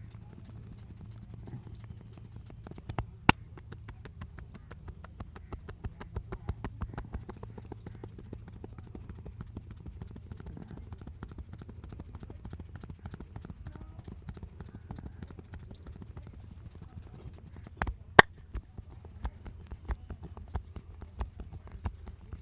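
Rapid hand tapping and slapping of a massage, several light strikes a second in a steady rhythm, with two much louder sharp smacks or cracks, one a few seconds in and one near the end.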